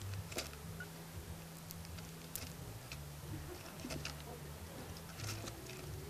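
Scattered small clicks and crackles of southern flying squirrels shelling and gnawing sunflower seeds, with seeds shifting on the seed pile, over a low hum.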